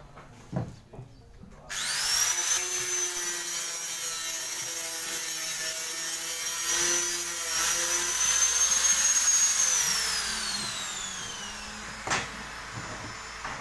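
Small electric angle grinder switched on and run against the edge of a fiberglass panel, a steady high whine with scraping under it. Near the end it is switched off and the whine falls away as the disc spins down, then a single knock.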